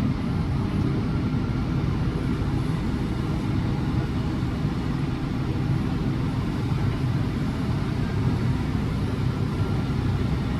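Heavy farm machinery engine running at a steady low drone.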